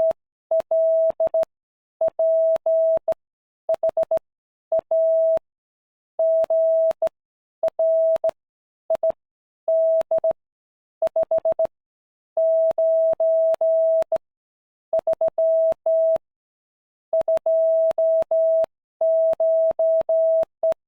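Morse code from a Morse code trainer: a single steady medium-pitched beep keyed on and off in short dots and longer dashes, grouped into letters with pauses between. Each beep starts and stops with a faint click.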